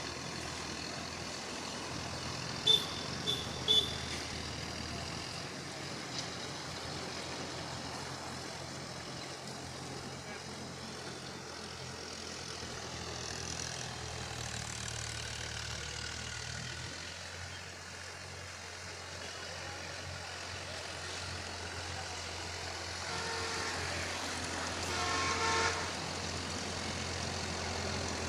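Tractor engine running steadily with a low hum. Three short sharp beeps come about three seconds in, and horn-like toots come near the end.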